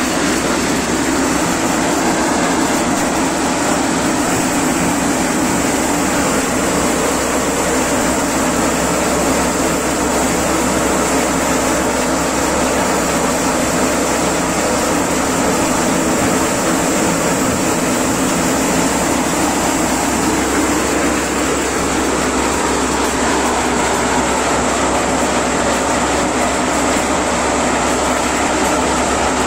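Tractor-driven maize sheller (thresher) running steadily at working speed: a constant loud mechanical din of the engine and the spinning drum, with no change in pace.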